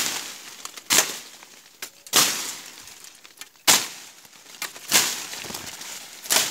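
A blade hacking through vines and undergrowth: six sharp chops roughly a second apart, each with a brief rustle and crackle of leaves and twigs, clearing brush before cutting firewood.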